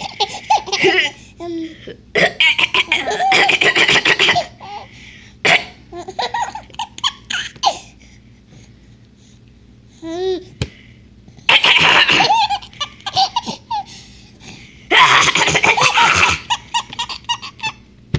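A baby's belly laughs come in repeated bursts with pauses between, set off by an older child's fake coughs.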